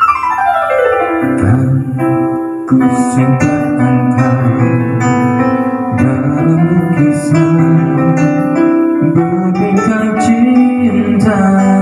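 Music with a plucked guitar and keyboard, opening with a falling glide in the first second, then steady chords and melody notes.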